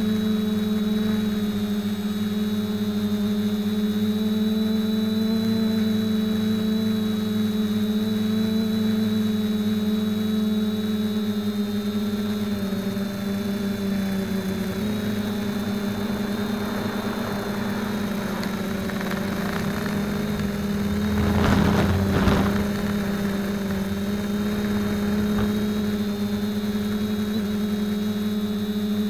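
Small quadcopter's electric motors and propellers whining steadily, recorded by a camera mounted on the quadcopter itself. The pitch shifts slightly now and then, and a brief louder rush of noise comes about three-quarters of the way through.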